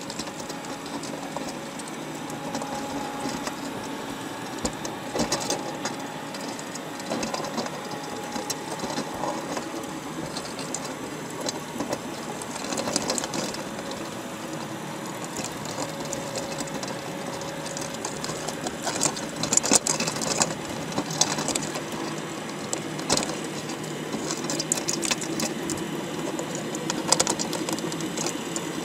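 Underwater sound inside a crab pot: a steady hiss with irregular clicking and scratching from crabs' shells and legs knocking against each other and the wire mesh, plus a faint steady hum. The clicking comes in thicker, louder bursts about two-thirds of the way through and again near the end.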